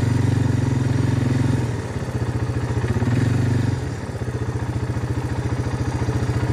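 ATV engine running steadily, easing off to a chugging idle about two seconds in, picking up briefly around three seconds, then settling back to idle.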